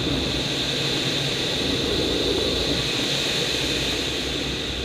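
Rushing airflow over an aerobatic glider's canopy heard inside the cockpit: a steady hiss over a low rumble, with no engine, fading a little near the end as the glider goes inverted.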